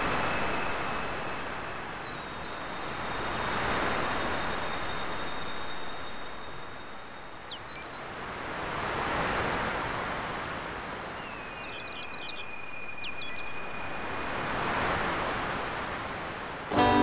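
Surf washing onto a sandy beach, each wave swelling and fading about every five seconds, with high thin bird chirps and whistles above it.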